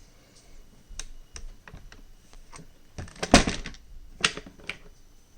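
Scattered sharp clicks and knocks from handling a Swiss K31 straight-pull rifle, with one loudest clatter about three seconds in.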